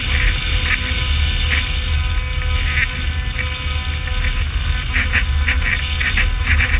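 Wind noise on the onboard camera of an RC flying wing in flight: a heavy low rumble with a steady whine and irregular raspy crackles, which come thicker near the end.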